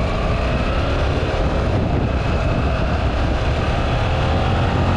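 Yamaha YZF-R7's 689 cc parallel-twin engine running on the move, its pitch climbing slowly as the bike gathers speed, over a steady heavy low rumble of wind and road noise.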